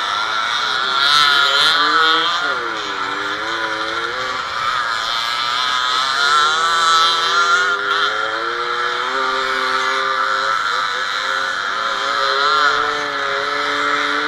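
Small two-stroke motorcycle engines of Fichtel & Sachs-engined machines, revving up and down as the throttle is opened and closed over rough grass, heard close from the rider's own bike.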